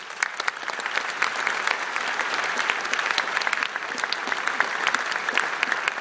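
Audience applauding: dense clapping from many hands that starts all at once and holds steady.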